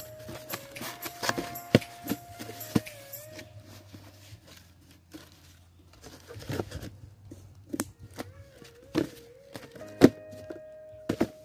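Cardboard box being handled, its sides bent and folded by hand: scraping and rustling of cardboard with a few sharp knocks, the loudest about ten seconds in.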